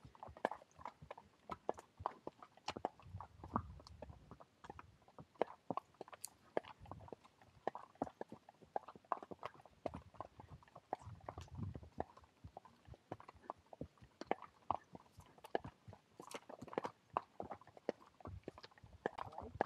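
A horse's hooves clopping on the trail as it is ridden, an uneven run of sharp steps several a second, with a few brief low rumbles now and then.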